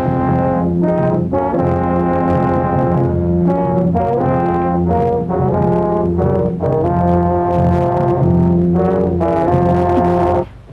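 Orchestral cartoon score led by brass, playing long held chords that shift every second or two, with a short break near the end.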